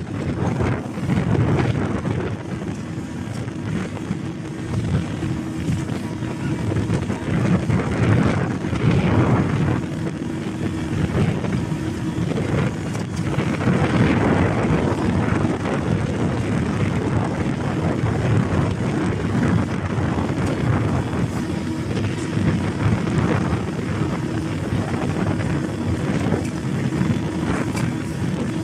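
Motorboat under way at speed: its engine drones steadily beneath wind buffeting the microphone in irregular gusts.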